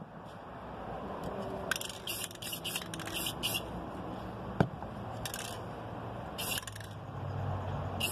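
Aerosol can of clear spray paint hissing in short spurts, several in quick succession and then a few more spaced apart. There is a sharp click about halfway through.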